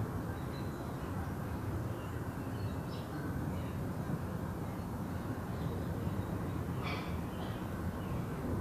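Steady low-pitched storm noise outdoors, with a short harsh bird call about three seconds in and another about seven seconds in.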